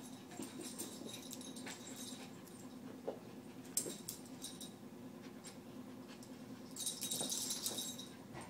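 Two small dogs, a Shorkie and a Morkie, play-fighting on carpet: scuffling and jostling, with a couple of short dog noises about three to four seconds in. A louder rattling burst comes near the end.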